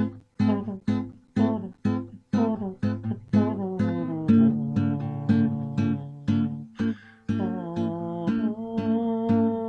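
Acoustic guitar music: short plucked notes at a steady beat of about two a second, giving way about four seconds in to longer ringing notes and chords.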